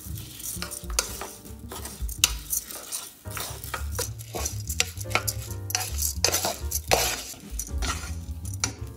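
Wooden spoon stirring uncooked rice grains around a nonstick pot: repeated irregular scraping and rustling strokes as the grains are turned.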